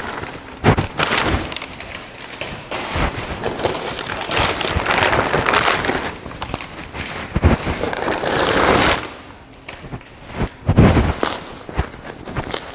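Packing paper crinkling and rustling inside a cardboard box as it is rummaged through, with several knocks and thuds of things being handled; the loudest thud comes near the end.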